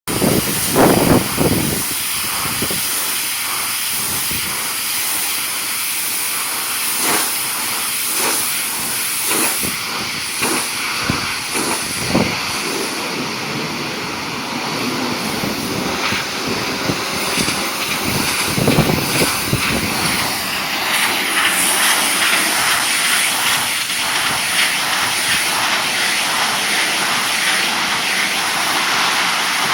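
Pressure washer spraying water onto wooden deck boards: a steady hiss broken by irregular short splashing knocks, growing brighter about two-thirds of the way through.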